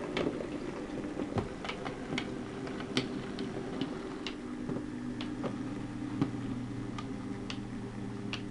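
Hornby K1 OO-gauge model steam locomotive and its coaches running on the layout: a steady low electric motor hum with irregular clicks, about one or two a second, as the wheels cross rail joints and points.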